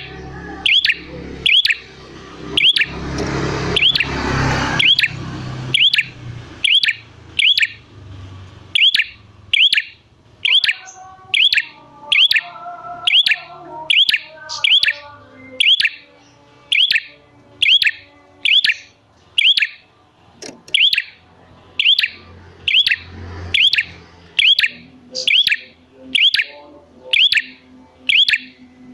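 Prenjak (prinia) calling over and over in a steady, even rhythm: one short, sharp chirp about every 0.7 seconds, used as a lure call to make other prenjak answer.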